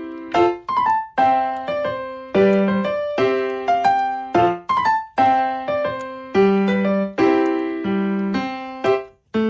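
Background piano music: chords and melody notes struck in a steady rhythm, each dying away before the next.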